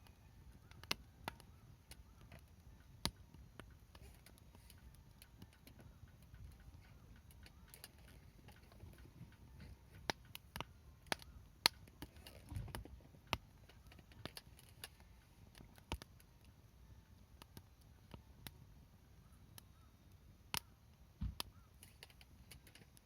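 Wood campfire in a folding fire pit crackling, with sharp irregular pops over a low soft rumble of the flames. A couple of duller thuds come about halfway through and near the end.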